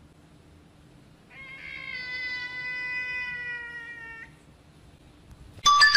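A grey cat gives one long meow lasting about three seconds, its pitch sinking slightly toward the end. Just before the end, a sudden loud cry cuts in.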